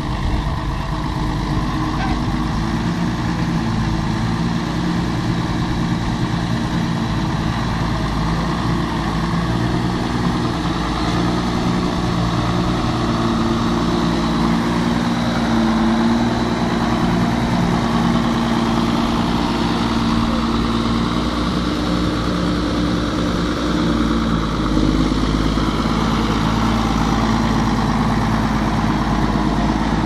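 Schlüter Super 1500 TVL tractor's six-cylinder diesel engine running steadily under load while pulling a plough, its note wavering a little.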